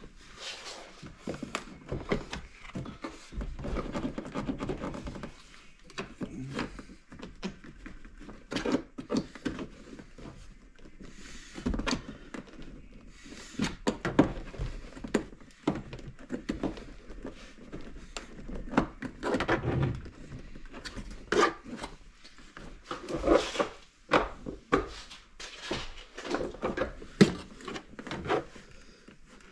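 Hands working on a car's interior door panel: irregular knocks, clicks and rustling of plastic trim and parts being handled.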